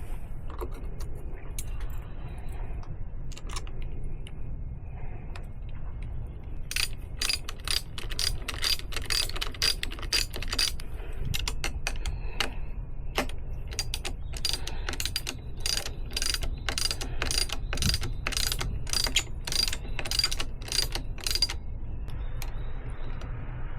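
Ratchet wrench clicking in a long run of quick, even strokes with a metallic ring, about two a second, from about a quarter of the way in until near the end, with lighter tool-handling clicks before and after.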